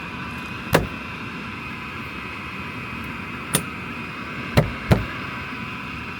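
Four sharp knocks as the filter access cover of an indoor HVAC air handler is handled and pushed back into place. Under them, the steady hum of the running unit.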